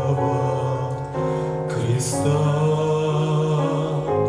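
Slow religious song sung in Russian, with long held notes over keyboard accompaniment; the phrase 'этого креста' is sung.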